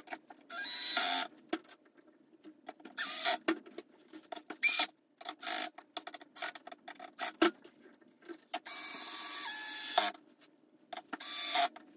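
Cordless drill driving screws into a plastic tackle crate in short starts and stops: about five runs of the motor, the longest lasting about a second and a half, with small clicks of handling between them.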